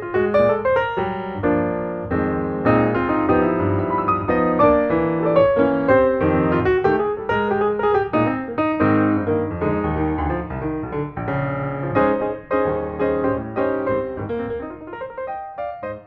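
Background piano music, many quick notes over held lower chords, fading out near the end.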